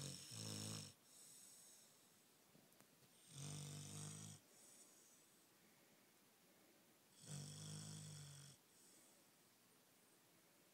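Beagle snoring in its sleep: three snores about four seconds apart, each about a second long and followed by a softer breath.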